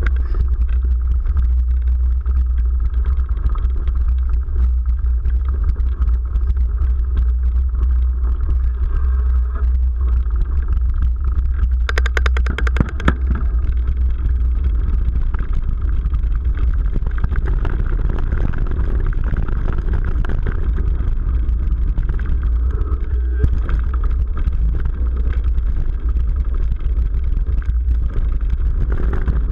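Mountain bike riding a dirt trail: a steady low rumble of wind and trail bumps, with a brief run of rapid clicking about twelve seconds in.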